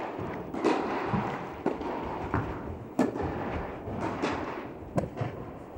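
Tennis rally in an indoor hall: sharp pops of racket strikes and ball bounces, about six of them roughly a second apart, each ringing on in the hall's echo.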